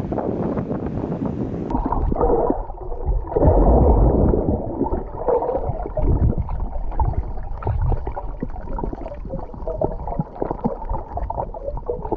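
Water sloshing and gurgling around a snorkeler, heard muffled as the camera goes underwater about two seconds in. Before that, open-air wind noise.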